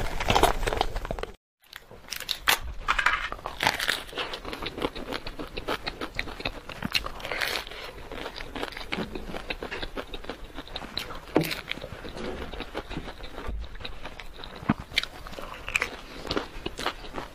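Close-miked eating of chocolate: biting and chewing with irregular crunches and crackly mouth clicks. The sound cuts out completely for a moment about a second and a half in.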